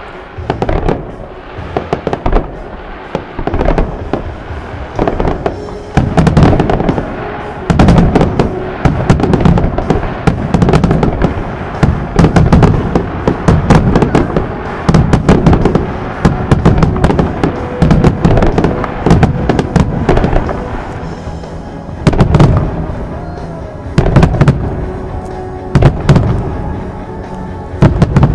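Aerial fireworks shells bursting in quick volleys, a steady run of sharp booms and crackles, with music from loudspeakers beneath.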